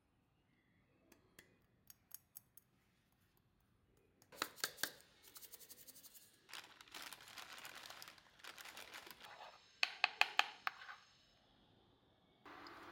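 Clicks and taps of kitchen containers being handled, then the rattle and patter of salt shaken from a plastic jar into a wok. Sharp clicks follow, and a steady hiss starts just before the end.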